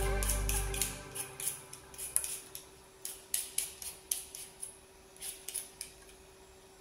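Y-shaped vegetable peeler scraping the skin off a raw potato in about a dozen short, irregular strokes. Background music fades out in the first second.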